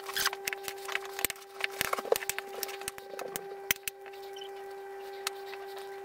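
A metal fork clicking and scraping against a glazed plate as a soft egg-and-mayonnaise filling is stirred, in rapid irregular clicks that stop about four seconds in. A steady hum runs underneath.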